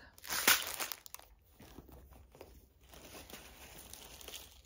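Clear plastic bags of bead packets crinkling and rustling as they are handled: a loud rustle in the first half-second, then lighter, irregular rustles and small clicks.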